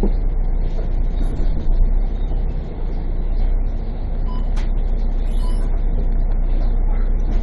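Steady low rumble of a moving vehicle's engine and road noise, heard from inside the vehicle, with a few faint short high chirps about five seconds in.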